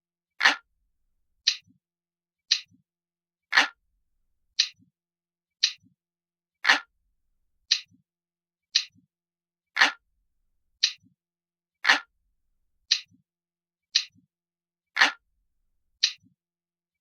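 Analog-style clock ticking steadily about once a second, with every few ticks louder and deeper than the others.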